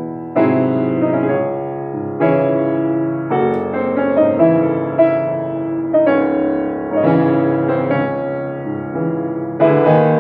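Bechstein grand piano being played: full chords struck roughly once a second, each ringing on and fading, the piano not yet tuned since its move. Heard through a phone's microphone.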